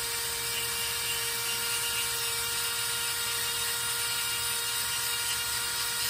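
Dremel rotary tool running at almost full speed through its flexible-shaft handpiece, a small sanding drum shaping a Micarta knife scale: a steady high whine with an even hiss.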